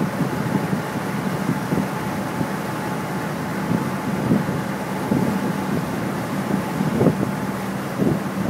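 CityCat catamaran ferry under way: a steady drone from its engines with a faint steady whine over it, and wind buffeting the microphone.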